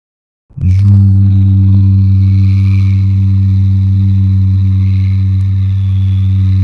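A steady, low motorcycle-engine drone starts abruptly about half a second in and holds one unchanging pitch.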